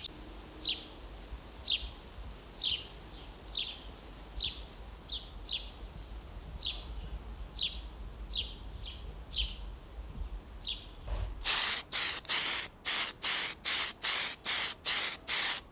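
House sparrows chirping: single short falling chirps, about one a second. About eleven seconds in, an aerosol spray-paint can takes over, hissing in short rapid bursts about three a second.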